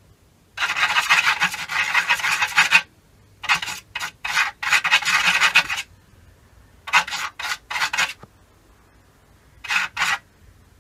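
Fennec fox scratching with its claws at a wooden wall: bursts of rapid rasping strokes, a long run about half a second in, then shorter runs of a few strokes, and two quick scrapes near the end.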